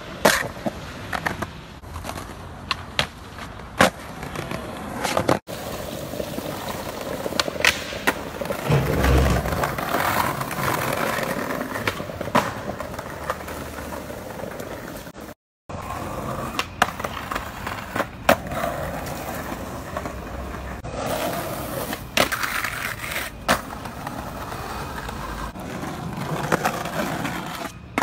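Skateboard wheels rolling on pavement, broken by sharp clacks of the tail popping and the board landing, over and over, with a few heavier thumps. The sound drops out briefly twice where separate takes are joined.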